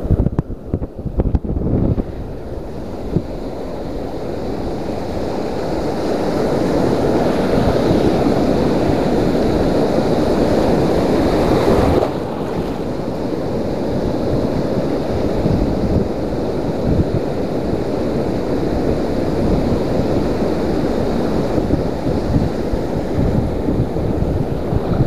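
Surf washing and foaming over a shallow rocky reef, with wind buffeting the microphone in low rumbling gusts. The sound shifts abruptly about twelve seconds in.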